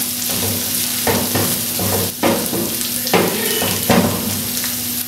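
Minced beef (qeema) sizzling in a frying pan while a wooden spatula stirs it, scraping across the pan in strokes about once a second over a steady hiss.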